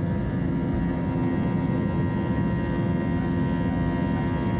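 Jet airliner's engines at full takeoff thrust, heard from inside the passenger cabin: a steady, loud low rumble with several steady tones over it, through the takeoff roll and liftoff.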